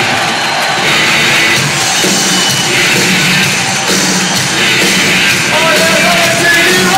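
Loud rock music played over an arena's sound system.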